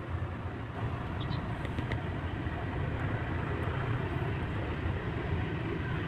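Steady low rumbling background noise, with a few faint clicks in the first two seconds.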